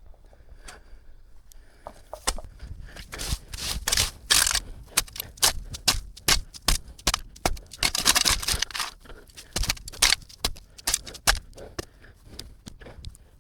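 Twigs, brush and dirt crackling and scraping in a run of irregular sharp crackles, thickest about eight seconds in.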